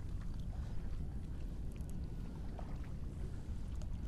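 Steady low rumble of wind on the microphone and shallow seawater lapping around a wading angler, with a few faint ticks.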